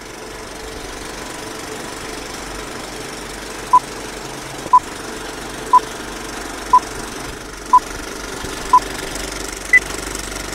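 Film-leader countdown sound effect: a film projector running with a steady whir, under six short beeps a second apart that start a few seconds in, then one higher-pitched beep near the end.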